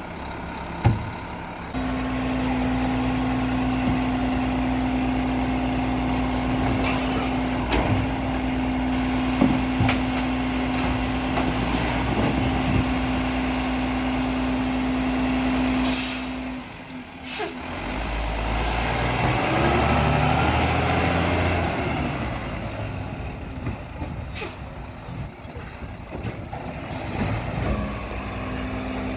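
Mack LEU refuse truck with a Labrie Expert 2000 side-loader body: a bin knocks against the hopper just under a second in, then the diesel runs at a raised, steady pitch for about fourteen seconds while the packer cycles. The air brakes let out two short hisses, and the truck pulls ahead, engine pitch rising and falling.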